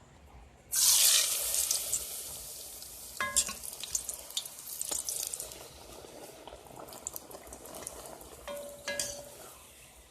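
Stretched bara dough dropped into smoking-hot oil: a sudden loud frying sizzle that slowly dies down. There are a couple of short knocks with a brief ring, once about three seconds in and again near the end.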